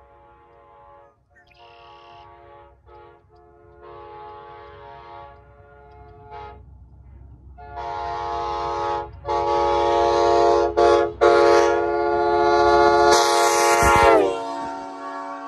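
Nathan K5LA five-chime air horn on a pickup truck passing at about 89 mph. It sounds a series of short blasts, then longer ones, growing louder as the truck approaches. Near the end the whole chord drops in pitch as the truck passes and fades, with tyre and road rumble underneath.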